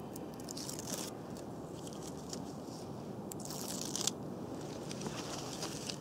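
Papery outer bark of a birch being torn off the trunk by hand in thin strips: two crinkly tearing rustles, near the start and about halfway through.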